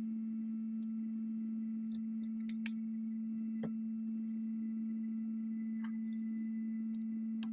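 A steady low tone hums at one unchanging pitch and is the loudest thing present. Over it come a few faint clicks and taps from an iPhone 7 Plus being handled as its display assembly is swung open: a small cluster about two to three seconds in, and single clicks just before four seconds and near six seconds.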